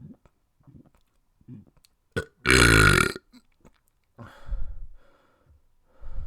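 A person burping: one long, loud burp about two and a half seconds in, followed by two shorter, softer burps.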